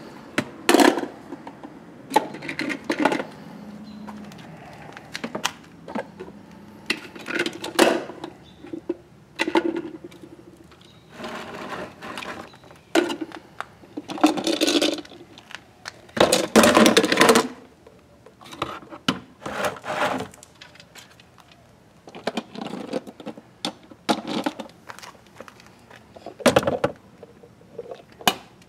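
Hard plastic clicking and clattering as a reacher grabber's jaws close on small plastic toy bins and the bins are dropped into a larger plastic bin, in irregular knocks, with a longer, louder clatter about two-thirds of the way through.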